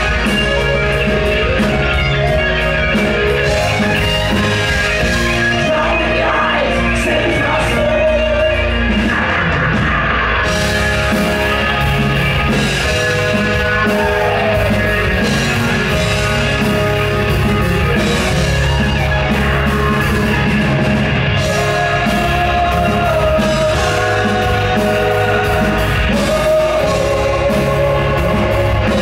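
Live rock band playing loud through a PA: electric guitar, drum kit, keyboards and bass guitar, with a male singer's voice over them.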